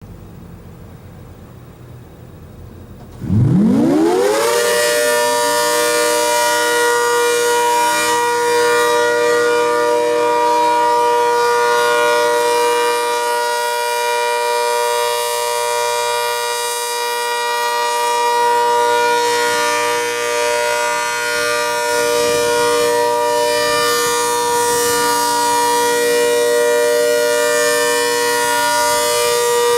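ACA Hurricane 130 outdoor warning siren starting up about three seconds in. Its pitch climbs quickly to a steady chord of several tones, which it then holds without wavering: the steady alert signal of a siren test.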